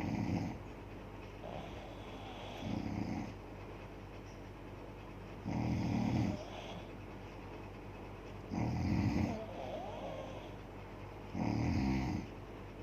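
A woman snoring in deep sleep: five loud, rasping snores, one about every three seconds.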